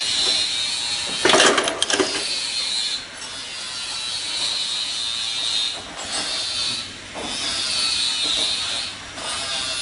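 Auto-feed riveting machine running with a steady high whirring hiss. About a second and a half in there is a brief, loud cluster of knocks and rattling.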